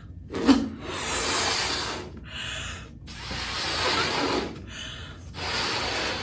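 A balloon being inflated: rushing air in about five spells, longer rushes alternating with shorter ones, with brief pauses between.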